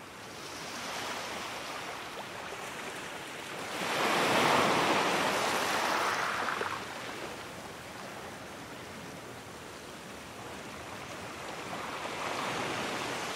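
Ocean waves washing, a surf sound effect. It surges loudest about four seconds in, eases after about six seconds, and swells again near the end.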